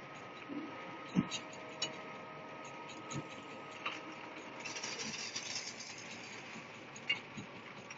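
JZM450 concrete mixer running: a steady mechanical hum with scattered clanks and rattles, and a brief rush of hissing noise about five seconds in.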